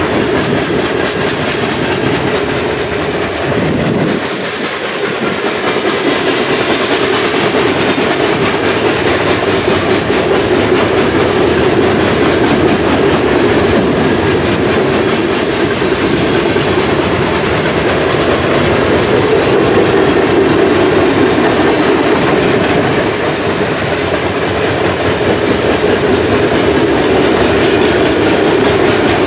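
Freight train cars (covered gondolas and a boxcar) rolling past close by: a steady rumble of steel wheels on rail, with a brief dip about four seconds in.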